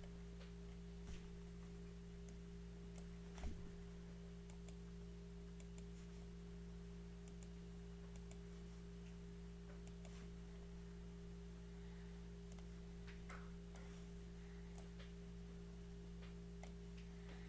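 Faint, scattered clicks of a computer mouse over a steady electrical hum, with one low thump about three and a half seconds in.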